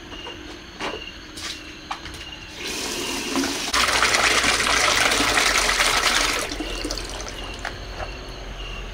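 Tap water pouring into a plastic basin while a plastic strainer is swished and rinsed in it. The splashing swells about three seconds in, is loudest for about three seconds, then settles to a steadier pour.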